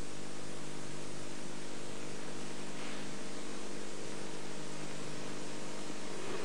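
Steady hiss with a low electrical hum, the noise floor of an old recording, unchanging throughout with no voice.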